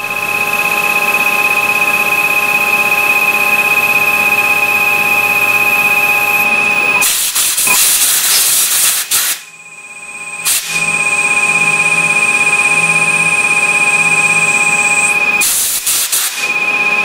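CNC lathe running with a steady high-pitched whine from its drive, broken twice by loud hissing blasts of compressed air from a hand-held nozzle aimed at the spinning plastic workpiece: once about seven seconds in for about two seconds, and again briefly near the end.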